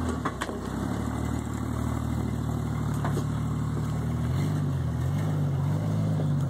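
Jeep Grand Cherokee ZJ's engine running at low revs while crawling over rocks, rising slightly in pitch about four seconds in as throttle is added; a few light knocks sound near the start.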